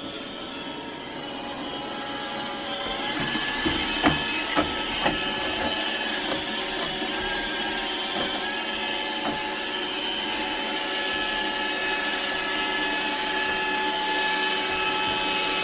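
Robot vacuum cleaner running: a steady whirring hum of its motor and brushes, growing louder about three seconds in, with a few sharp knocks about four to five seconds in.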